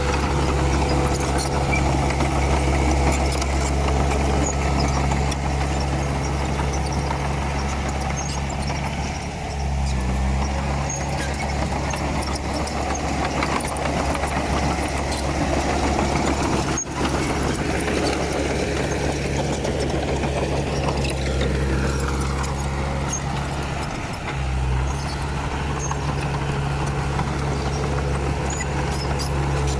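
Komatsu D31P bulldozer's diesel engine running steadily under work, its low note changing briefly about ten seconds in and again near twenty-five seconds, with a momentary break around the middle.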